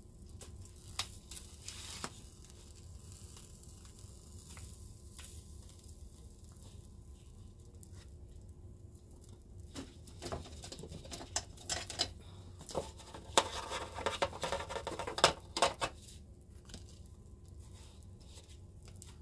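Paper photograph burning while held in the hand: faint crackling and rustling, with a denser run of louder crackles and clicks from about ten to sixteen seconds in.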